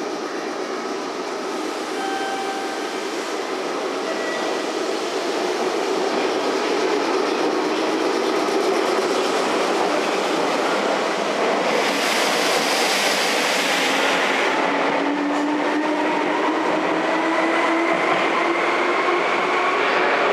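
Red Meitetsu electric train, a 6000-series and 6500-series set, pulling out of the station: wheel clatter and running noise, with a burst of hiss about twelve seconds in and a traction-motor whine that climbs steadily in pitch as it speeds up.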